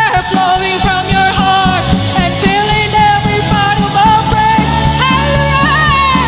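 Live worship band playing loud rock-style music with drums, and a wavering melodic line on top.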